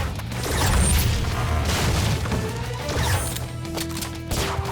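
Action cartoon score playing at a driving pace, with several crashing impacts spread through it.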